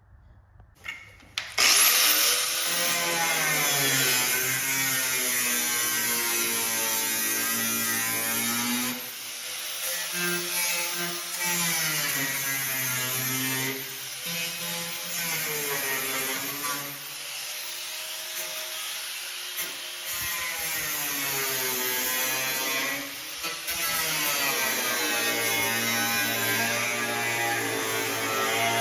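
A power tool working the car's quarter-panel sheet metal, starting about a second and a half in and running in long stretches, its pitch sagging as it bites and rising again as it frees, with several brief pauses between passes.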